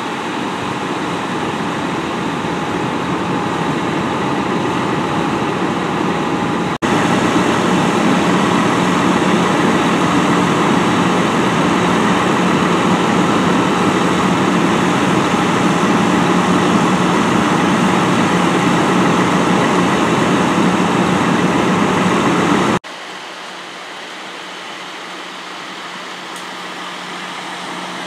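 Fire truck's diesel engine running steadily, a constant mechanical drone. It steps louder about seven seconds in and drops back quieter near the end.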